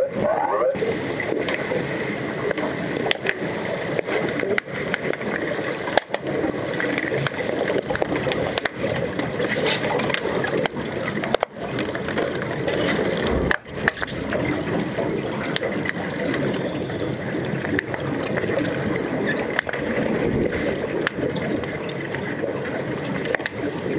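Underwater pool noise picked up by a submerged camera: a continuous rushing, bubbling churn from finned swimmers moving through the water, with occasional sharp clicks.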